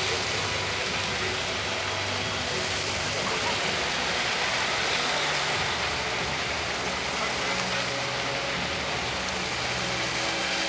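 Steady rushing hiss of water spraying from a water-screen nozzle, with a low engine hum that comes and goes underneath.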